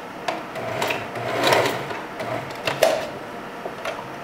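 Singer 4423 Heavy Duty sewing machine stitching a weft onto a wig cap in a run of about three seconds, its motor humming under the needle's clatter, with a few sharp clicks.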